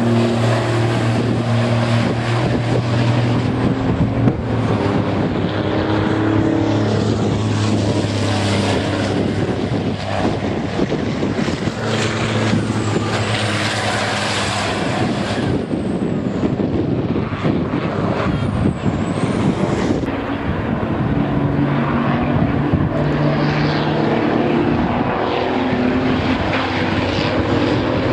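Racing trucks' turbodiesel engines running hard on the circuit, a loud, steady engine sound. It changes abruptly about two-thirds of the way through.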